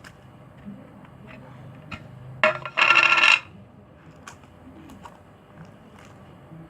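A small hard object clattering and ringing on a hard surface: a short clink about two and a half seconds in, then about half a second of loud metallic-sounding ringing with several tones that stops abruptly.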